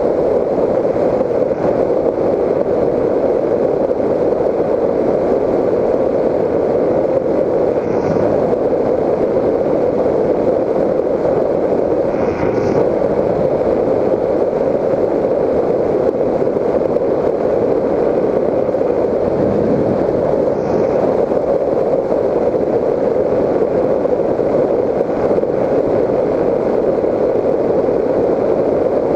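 Steady in-flight noise of a Raptor 1600 FPV electric model plane as picked up by its onboard GoPro Hero 3 in its housing: a muffled, even rush of airflow and propulsion noise, with a few faint brief hisses.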